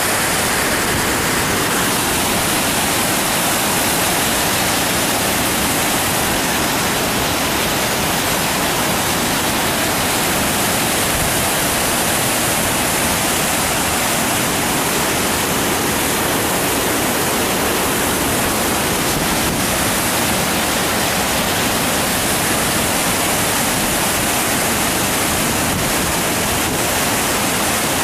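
River water spilling over a lock and dam, a loud, steady rushing noise that does not let up.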